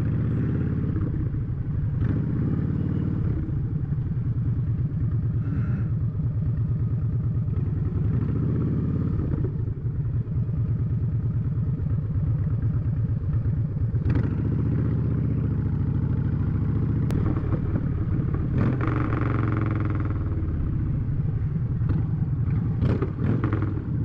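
Motorcycle engine running steadily while riding, its note rising and falling a little now and then. A few short sharp clicks near the end.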